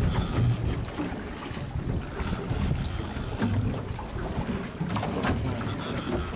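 Wind buffeting the microphone over a steady rumble of a small boat on choppy open sea, with gusts of brighter hiss coming and going several times.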